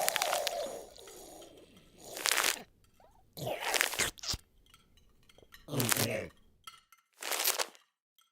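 A series of four short crunching, scraping noises, each under a second long and about a second or more apart, with near silence between them.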